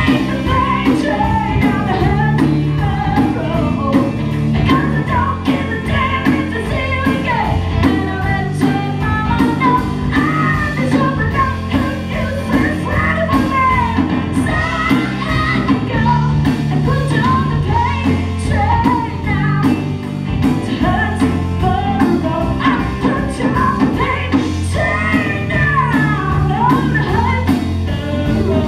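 Live rock band playing loud: electric guitar, electric bass and drums, with a woman singing into a microphone.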